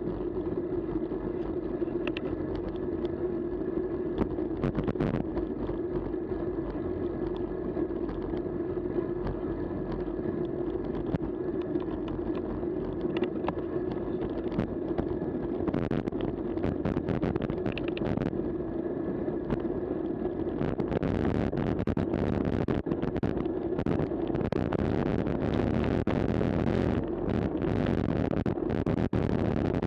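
Steady rush of wind and tyre noise from a cyclocross bike descending fast on a tarmac lane, heard through a bike-mounted action camera. About two-thirds of the way through the noise grows brighter and rougher, with many small clicks and rattles.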